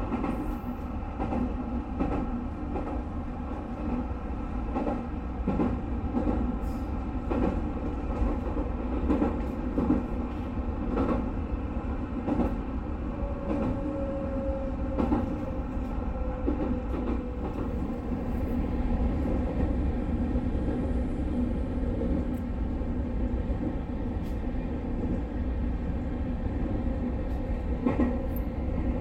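JR West 221 series electric train running at speed on the Nara Line, a steady rumble and hum of the running gear with irregular clicks of the wheels over the rails.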